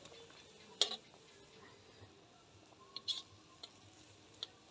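Metal tongs clicking against a wok a few times, sharp clicks about a second in and again around three and four seconds in, over a faint sizzle from the pan.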